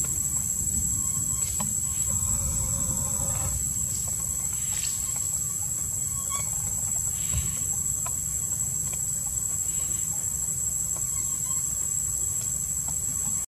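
Outdoor ambience: a steady low rumble and a constant high-pitched whine, with a faint drawn-out animal call about two seconds in and a few faint chirps.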